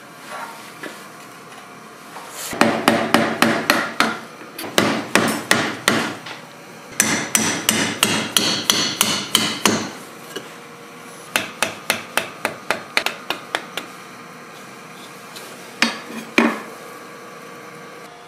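Steel hammer striking a rusty old knife held at a bench vise, knocking the old handle off the tang. The blows come in quick runs of several sharp strikes with short pauses between, ending in a couple of single blows.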